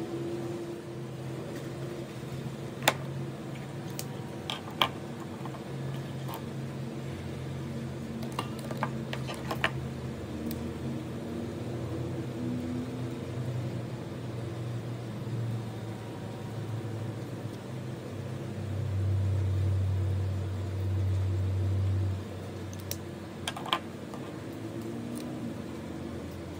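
A steady low mechanical hum that swells louder for a few seconds near the end, with a handful of sharp clicks and taps scattered through it.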